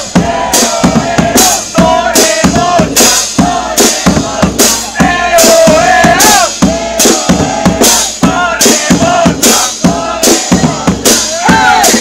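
Charanga brass band playing a lively tune: brass including trombone carrying the melody over a drum kit whose bass drum, snare and cymbal hits keep a steady beat, with voices singing along, one through a megaphone.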